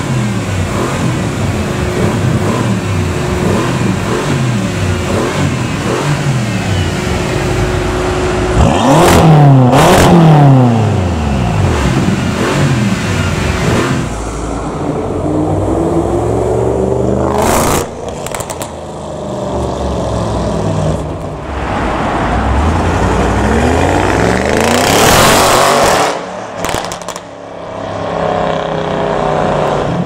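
A BMW M6 convertible's engine is revved repeatedly through its quad exhausts, pitch rising and falling, with the biggest rev about nine seconds in. About halfway through, an Audi RS6 Avant revs and accelerates, with sharp cracks twice.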